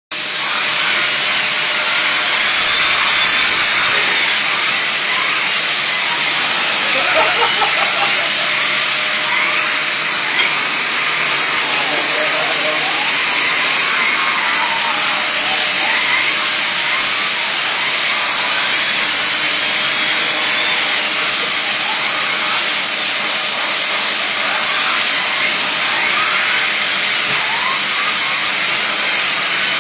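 Vacuum cleaner running steadily, its hose nozzle being drawn over a dog's coat: a constant rushing noise with a thin high whine over it.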